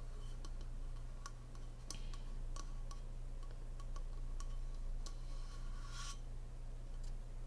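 Fingernails tapping on a water bottle in scattered light clicks, with a short scratchy rub about six seconds in, over a steady low hum.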